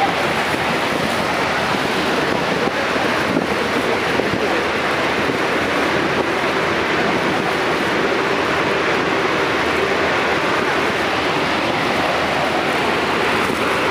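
Steady roar of Niagara Falls' falling water and spray, with wind buffeting the microphone.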